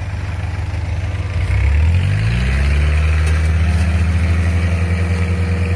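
Diesel engines of a tracked rice-hauling tractor and a bogged Kubota DC-70 combine harvester running. About a second and a half in they rev up and then hold at high revs under heavy load, straining to tow the combine out of deep mud.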